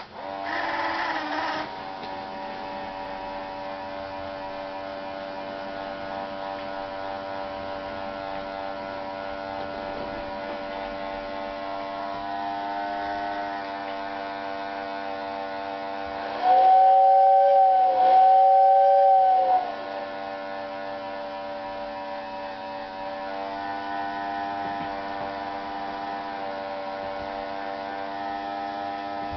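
Powered-up Lionel General 4-4-0 toy train set giving a steady electrical hum of several pitches. About two thirds of the way through, a louder two-note whistle-like tone sounds twice in quick succession, sliding in and out at its ends.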